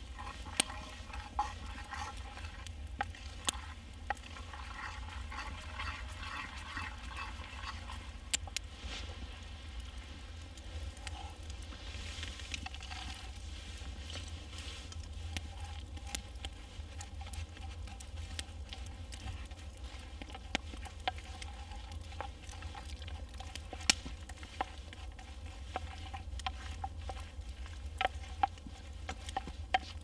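Campfire cooking: a steady low sizzle with scattered sharp crackles and pops, denser in the first several seconds.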